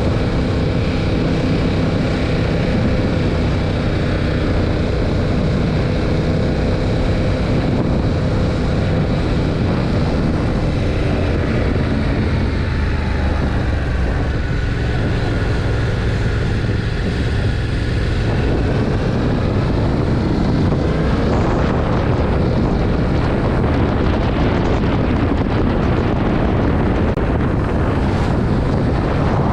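Stock 2021 Yamaha MT-07's 689 cc parallel-twin engine running on the move through the standard exhaust. Its note holds steady at first, then falls and rises with throttle changes around the middle, with wind rushing over the microphone.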